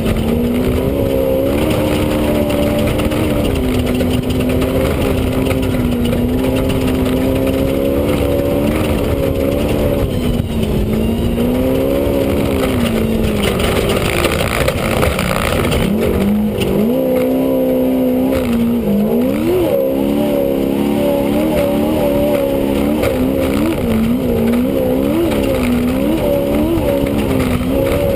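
Off-road race vehicle's engine heard from inside the cab at speed, its pitch rising and falling constantly as the throttle is worked, over a steady rush of noise. About halfway through the engine note drops briefly, then climbs again.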